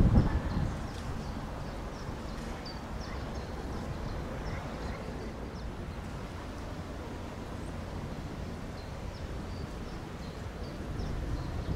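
Outdoor ambience: wind buffeting the microphone, gusting hard at the start and then settling to a steady rumble, with small birds chirping now and then.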